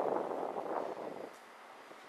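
City street noise of passing traffic, a steady rushing that dies down after about a second.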